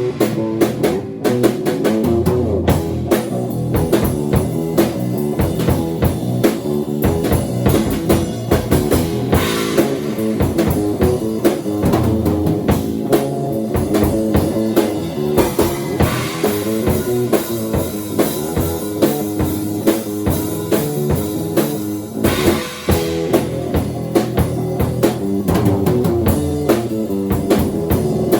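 Bass guitar and drum kit playing an improvised rock groove together, the drums keeping up a steady run of hits with cymbals swelling in and out over the bass line.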